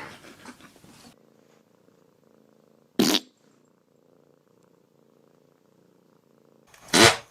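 A cat purring faintly and steadily. Two short loud noises break in, one about three seconds in and a longer one near the end.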